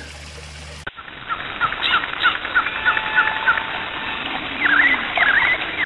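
Songbirds calling: a quick series of about eight short chirps, then a few louder sweeping calls near the end. Before them, a steady rush of creek water cuts off suddenly about a second in.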